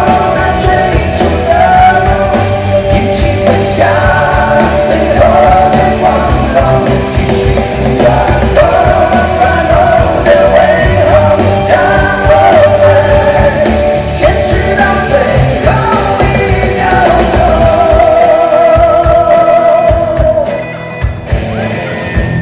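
Male singer singing live into a handheld microphone over amplified band music, ending on a long held note with vibrato about twenty seconds in; the band carries on more quietly afterwards.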